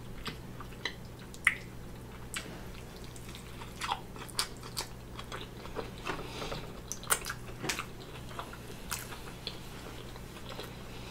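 Close-miked chewing of a mouthful of BBQ bacon burger, with irregular wet mouth clicks and smacks.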